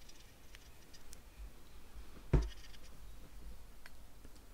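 Small hand file scraping and ticking lightly in the square centre hole of a brass ratchet wheel as the hole is squared out, with one sharp clack a little over two seconds in.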